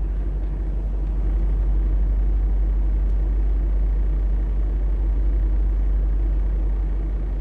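Steady low rumble of a semi-truck's engine heard inside the truck cab, unchanging throughout.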